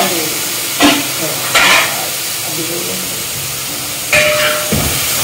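Marinated chicken pieces sizzling in a wide aluminium pan, with a steady frying hiss. A spatula stirs and scrapes against the pan three times, about a second in, just under two seconds in, and again past four seconds.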